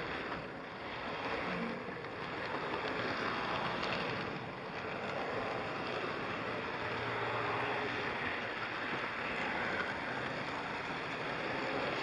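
HO scale model train running along its track, heard close up from aboard: a steady rushing rumble of wheels on rail and the small motor, swelling slightly now and then.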